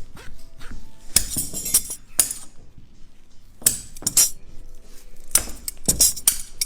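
Hand tools clinking and knocking against a hard worktable while hard candy is shaped by hand: a run of sharp, irregular knocks, about eight strong ones, each with a short ring.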